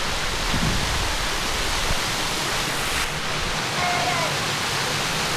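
Steady rushing roar of a waterfall pouring into a pool. A brief high voice-like call sounds over it about four seconds in.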